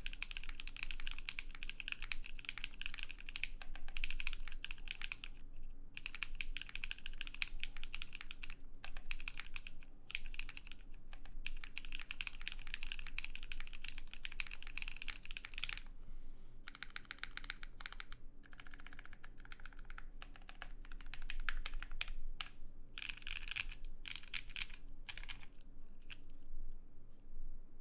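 Fast, continuous typing on an idb60 mechanical keyboard with lubed Novelkeys Cream linear switches, OG Cherry doubleshot keycaps and a plateless gasket mount. There are brief pauses about five seconds in and again near the middle, and the keystrokes thin out near the end.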